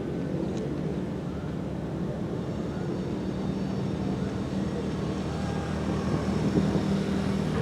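Model aircraft's motor and propeller running steadily, a low even hum with wind rush, heard from the camcorder carried on board.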